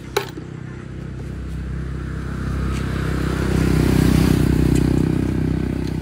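A motor vehicle's engine passing close by, growing louder to a peak about four seconds in, then fading. A sharp click comes just at the start.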